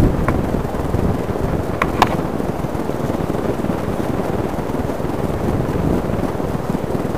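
Wind buffeting the camera's microphone: a steady low rumbling noise, with a couple of short clicks about two seconds in.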